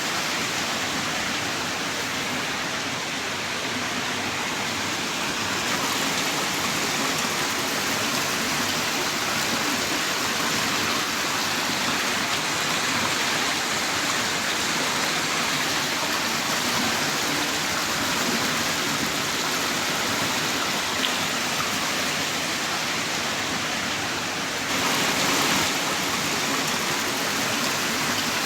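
Heavy rain pouring down in a steady, dense hiss, swelling slightly for a moment near the end.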